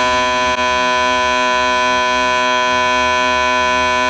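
Four decapped Honda K20A fuel injectors firing together on a CT-150 injector tester, a loud steady electric buzz that holds one pitch, with a slight click about half a second in.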